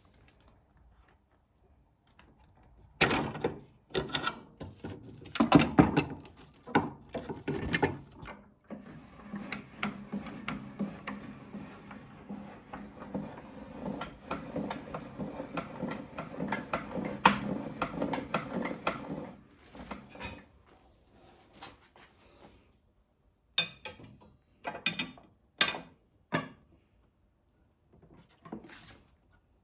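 Irregular knocks and clatter of table-saw parts being handled and fitted, with a stretch of continuous rubbing and scraping in the middle and a few separate knocks near the end.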